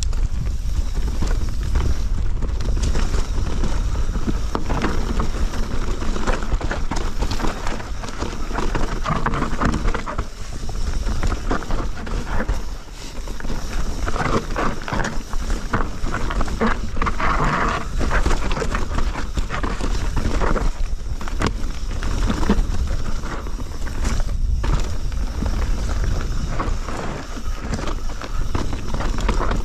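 Mountain bike riding down a rough forest trail, picked up by a handlebar-mounted action camera: a steady rumble of tyres and wind on the microphone, with constant rattling and knocking from the bike over the bumps.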